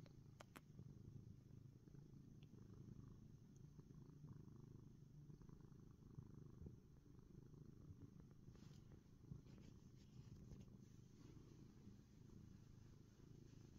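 A domestic cat purring softly and steadily, close to the microphone, with a few faint rustles and clicks in the second half.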